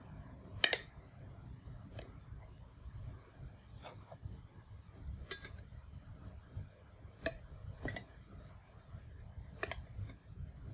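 Table knife and metal cake server clicking and scraping against a paper plate and wooden table as a carrot cake is sliced, about eight sharp clicks a second or two apart over a low background rumble.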